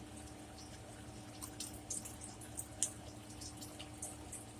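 Close-mouthed chewing and wet lip-smacking while eating a crisp microwaved cheese taco shell, heard as a scattering of small sharp clicks. A faint steady hum sits underneath.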